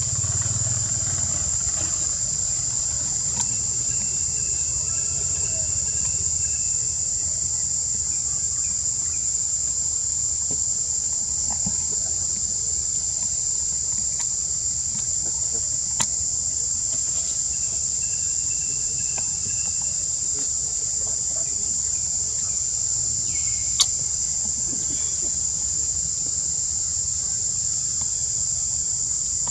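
Insects droning steadily on one high pitch without a break. A single sharp click stands out about four-fifths of the way through.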